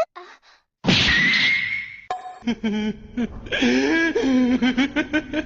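A quick run of meme sound-effect clips: a sudden loud noisy hit with a whistling tone about a second in, then a string of short wavering voice-like snippets.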